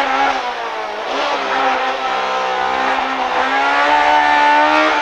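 Honda Civic EK9 rally car's engine heard from inside the cabin, held at high revs. The pitch sags briefly about half a second in and again a little after three seconds, then climbs back.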